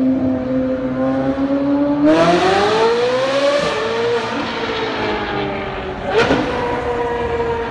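Ferrari 458's V8 engine revving in a road tunnel: a steady note that rises sharply about two seconds in as it accelerates, steps at a gear change, then eases off. A sharp crack comes about six seconds in.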